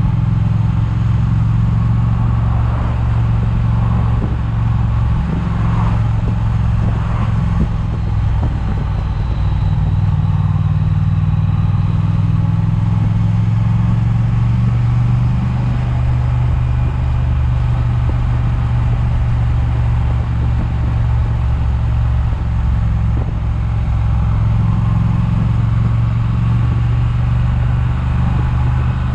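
Triumph motorcycle engine running at a steady cruise, with wind noise buffeting a chest-mounted camera's microphone.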